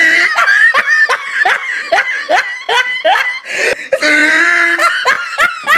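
A person laughing hard: a run of short rising "ha" sounds, about three a second, between longer high-pitched held laughs near the start and about four seconds in.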